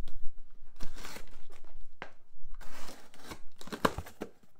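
Cardboard box being opened by hand: tape tearing and cardboard flaps scraping and crinkling in several rasping bursts, with a few sharp knocks near the end.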